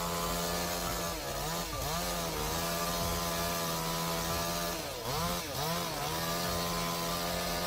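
Two-stroke chainsaw running at high revs while cutting wood, its engine speed dipping under load and recovering twice.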